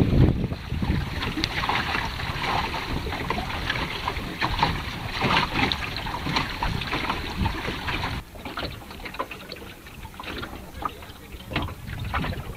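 Water splashing and lapping against the hull of a small wooden sailboat under way, in many short splashes, with wind rumbling on the microphone. It gets a little quieter after about eight seconds.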